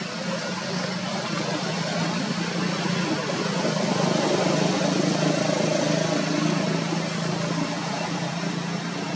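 A vehicle engine running steadily with a low hum, growing a little louder through the middle.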